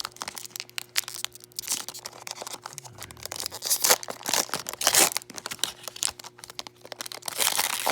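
Trading card pack wrapper crinkling and tearing, with cards being shuffled and handled: a run of quick clicks and rustles, loudest a few times midway and near the end.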